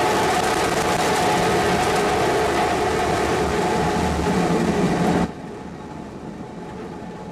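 Starship SN15's three Raptor engines roaring through liftoff and climb, a loud, steady rocket roar. About five seconds in it drops abruptly to a much quieter rumble.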